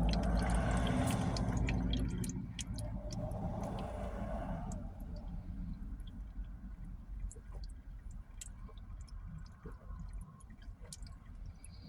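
Liquid sloshing and gulping as a drink is chugged, with small clicks scattered through the later part.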